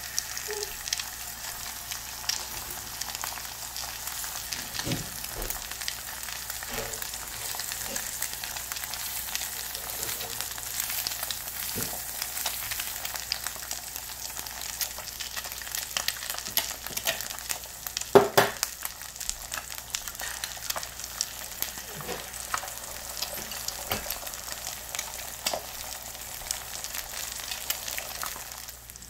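Eggs frying in a nonstick pan: a steady crackling sizzle with many small pops of spattering fat, and one louder sharp crack about two-thirds of the way through.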